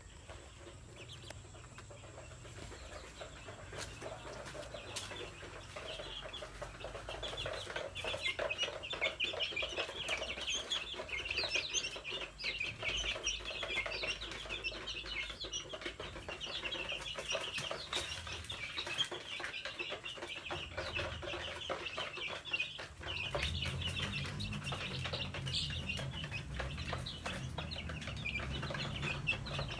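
A flock of young white-feathered H'mong chickens peeping together, a dense chorus of short high calls that grows louder over the first several seconds. A low steady hum comes in about three quarters of the way through.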